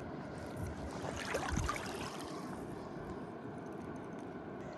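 Steady rush of river water, with a brief faint stir about a second and a half in.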